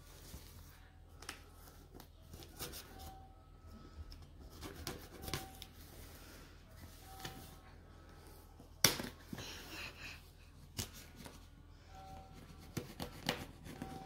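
Knife blade slitting the packing tape on a cardboard shipping box: faint scratching, scraping and crackling of tape and cardboard in short irregular strokes, with one sharp click about nine seconds in, the loudest sound.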